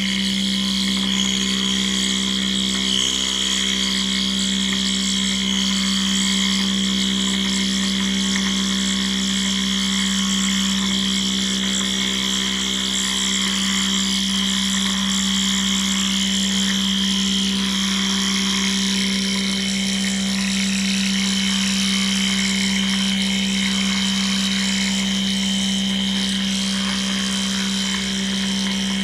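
CNC metal milling machine running steadily: a constant low hum with a thin high whine above it and a hiss over the top, unchanged throughout.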